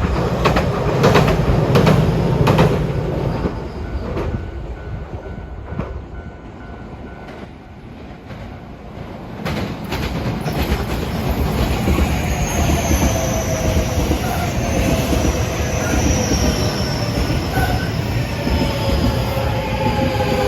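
Trains on the line. A train passes with its wheels clacking over rail joints and fades away. Then another train comes up, its running sound growing, with a high whine that slowly falls in pitch.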